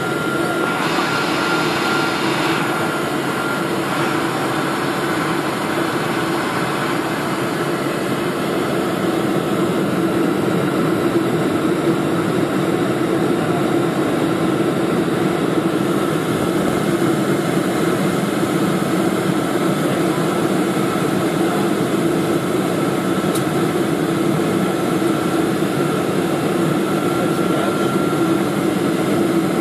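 Steady jet cabin noise of a KLM Boeing 747 on approach, heard from inside the passenger cabin: the wing-mounted GE turbofan engines running with a thin steady whine over the rush of air. A brief burst of hiss comes about a second in.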